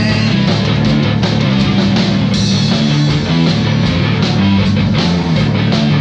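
Rock music: a drum kit with snare, toms and cymbals played on a steady beat along to a band track with electric guitars and bass.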